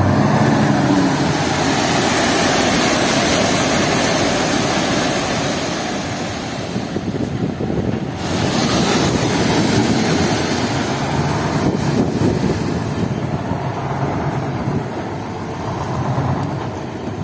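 Large diesel dump truck engines running, under a loud steady rushing noise that dips briefly about seven seconds in.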